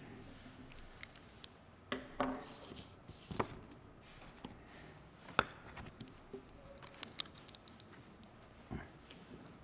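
Faint handling sounds at a wooden lectern: a pen writing and a sheet of paper being picked up and rustled, with a few scattered sharp clicks in a quiet room.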